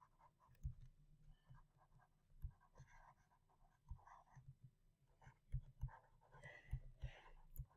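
Pen stylus writing on a tablet: faint scratching strokes with light taps of the pen tip, coming and going unevenly.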